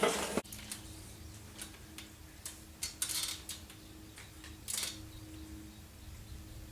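Faint, scattered light clicks and metallic handling noises, a handful over several seconds, over a faint steady hum.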